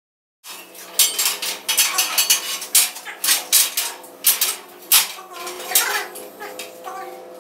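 Irregular metallic clanks and knocks, several a second, over a steady hum: construction workers handling steel scaffolding and props.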